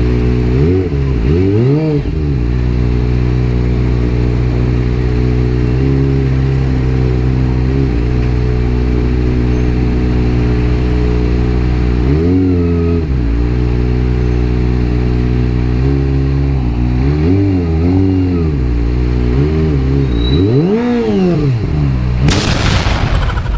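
Kawasaki ZX-25R's inline-four engine running at low revs in crawling traffic, with throttle blips that rise and fall in pitch: one about a second in, another around twelve seconds, and a run of quick blips a few seconds before the end. Near the very end comes a loud, hissy burst lasting about a second.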